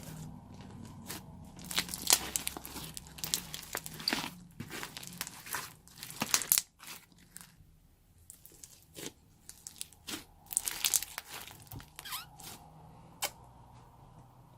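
Slime being worked by hand and mixed with crunchy foam, giving irregular crunches and crackles. There is a quieter stretch about seven to nine seconds in.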